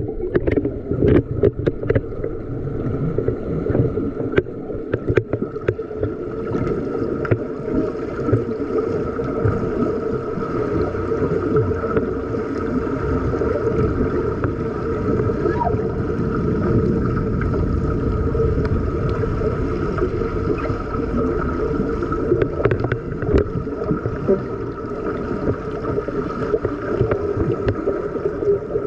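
Swimming-pool water heard underwater as players swim and dive: a steady muffled rumble and hiss of moving water and bubbles, with a steady hum under it. Sharp clicks and knocks come now and then, clustered in the first few seconds and again past the middle.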